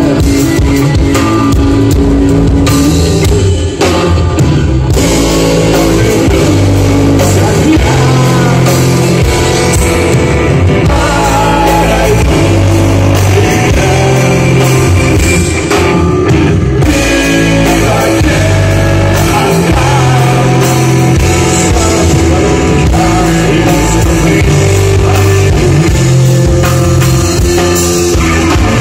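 Live rock band playing loud: electric guitar, bass guitar and drum kit, with a man singing over them.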